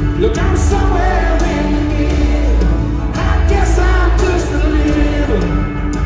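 A live band playing amplified through an arena's sound system, with a man singing over it, heard from the crowd with the hall's reverberation.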